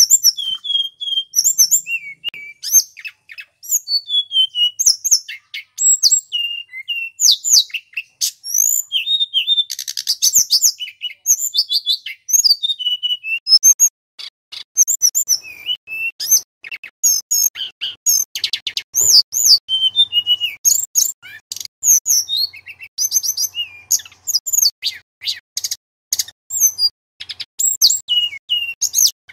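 Male tledekan gunung, a Cyornis blue flycatcher, singing continuously: a fast, varied stream of high whistles, slurred notes and rapid trills with only brief pauses.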